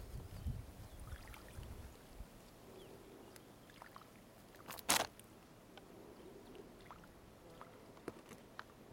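Plastic carrier bag full of fish rustling and crinkling faintly as it is held open, with scattered small crackles and one short, louder crinkle about five seconds in. A low rumble in the first two seconds.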